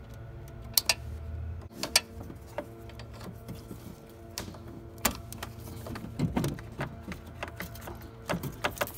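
Hands handling a metal transmission cooler line at its fitting: scattered sharp clicks and light metal taps, with two quick clusters of them in the second half.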